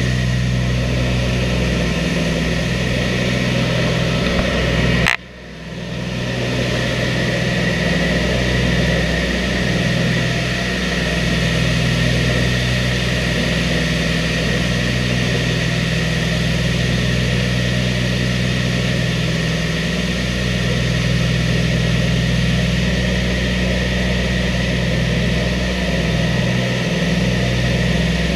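Twin Wright R-2600 radial engines of a B-25 Mitchell bomber running hard in the climb after takeoff, heard from inside the fuselage as a steady, loud drone. About five seconds in there is a sharp click and a brief dip in level, then the drone comes back.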